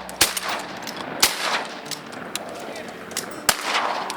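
Shotgun blasts from duck hunters firing at passing waterfowl: three loud shots, about a quarter second in, a second later and again near the end, each echoing briefly across the marsh, with a few fainter clicks between.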